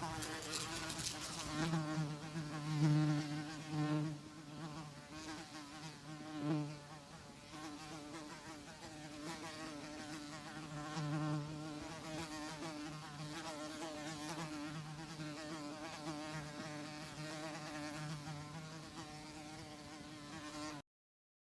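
Housefly buzzing in flight: a steady wing-beat hum that swells and fades as the fly moves about, loudest in the first few seconds. It cuts off suddenly about a second before the end.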